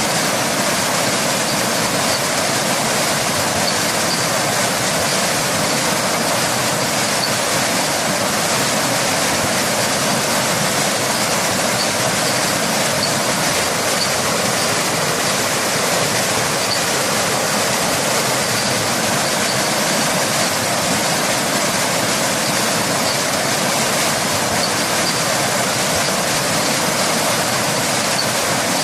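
Waterfall and rain: a steady, unbroken rush of falling water with no change in level.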